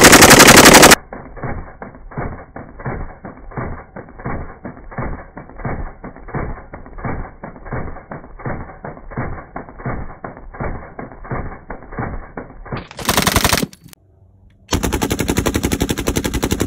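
SG-43 Goryunov 7.62×54mmR medium machine gun firing fully automatic bursts of rapid shots. A loud burst opens and another comes near the end. Between them is a long stretch of the same fire slowed down, with dull shots spaced about three a second and no high end.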